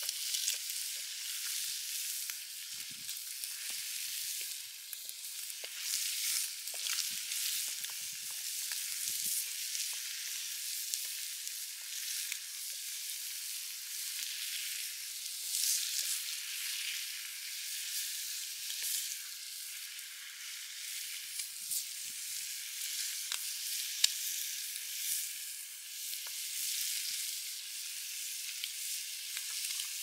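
Bacon sizzling in a cast iron skillet over campfire embers, a steady hiss full of small crackles and pops, with a wooden spatula stirring and scraping it now and then. One sharp pop stands out about 24 seconds in.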